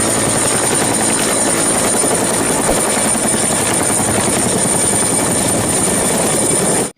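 Helicopter sound effect from a toy helicopter: a steady rotor-and-engine whir with a high whine over it, cutting off abruptly near the end.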